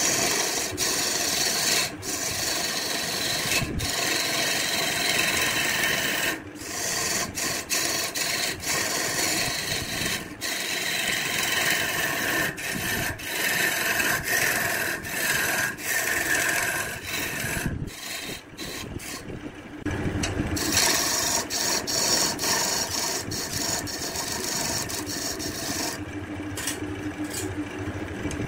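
Wood turning on a wood lathe: a tool scraping against the spinning wood in a continuous hiss, broken by many brief pauses where the tool lifts off.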